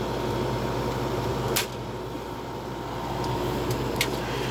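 GoldStar window air conditioner running, a steady fan and compressor noise with a low hum. A few sharp clicks, the loudest about a second and a half in.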